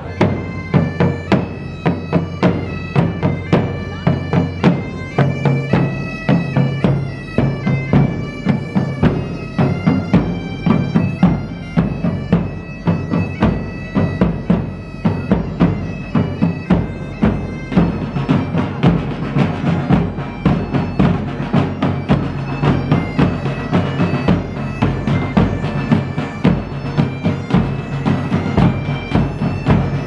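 Street band of bagpipe and drums playing: a bagpipe melody over a steady drone, with a large bass drum and smaller drums beating a steady rhythm.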